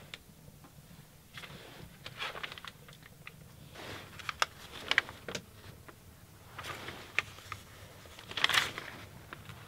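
Paper pages of an old paperback book being handled and turned: scattered dry rustles and small crisp clicks, the loudest rustle about eight and a half seconds in.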